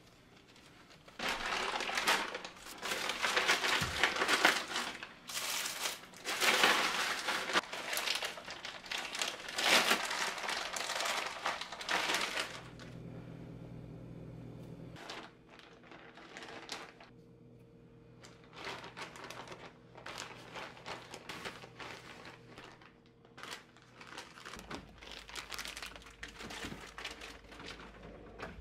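Packaging crinkling as it is handled, dense and busy for most of the first twelve seconds. After that, a low steady hum with scattered light clicks and knocks.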